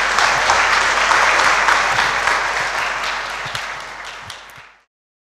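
Audience applauding with steady clapping, which fades out and stops near the end.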